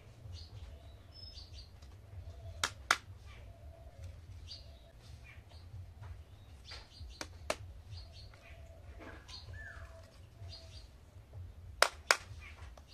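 Hard plastic toy kitchen pieces set down on a table, three times, each landing as a pair of sharp clicks. Faint chirping and a low steady hum run behind.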